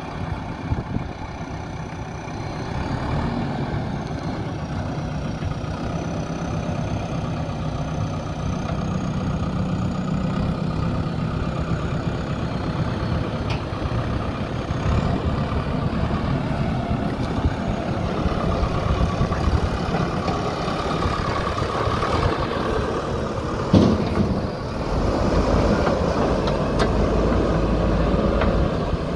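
JCB 3DX backhoe loader's diesel engine running steadily as the machine drives and works its loader bucket, with a single sharp knock late on.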